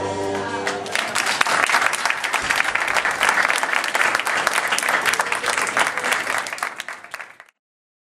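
Music ends about a second in and an audience breaks into applause, many people clapping. The applause fades out near the end and stops.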